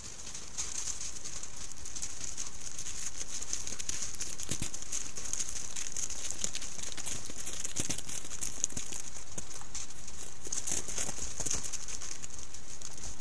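Wolves' paws crunching and shuffling in snow as a pack mills around, heard as scattered soft crunches and rustles over the steady high hiss of a trail camera's microphone. The hiss swells in over the first two seconds as the camera's recording starts.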